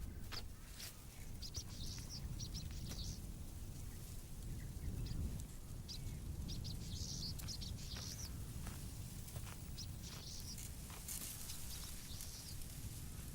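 Outdoor ambience of small birds chirping in short bursts every few seconds, over a steady low rumble, with scattered faint clicks and rustles.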